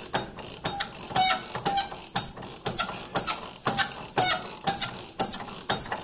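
Hand ratchet turning a nut off the front lower control arm in quick, even strokes, about two a second. Each stroke gives a short high squeak that falls in pitch.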